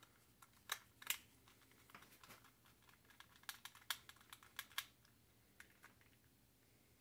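Faint, irregular clicks and ticks from a small screwdriver turning screws back into the plastic shell of FPV goggles, with the plastic being handled.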